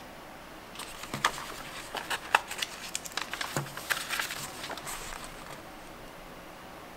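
Paper pages of a small paperback book being flipped through by hand: a quick run of page flicks and rustles that starts about a second in and dies away a little before the end.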